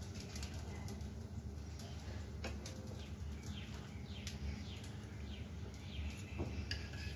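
Birds chirping faintly in the background, a string of short falling chirps through the second half, over a steady low hum with a few light clicks.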